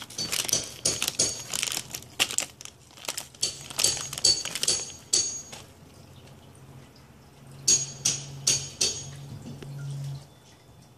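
Crinkling and crackling of a plastic snack bag as a cat bites and paws at it, in bursts of sharp crackles. It eases off around the middle, then comes back in another short burst near the end.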